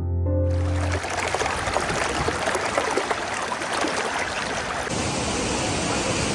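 Water rushing loudly and steadily, as from a waterfall or fast stream, after a short piano phrase that ends in the first second. The sound shifts a little near the end, as if at a cut to another shot of the water.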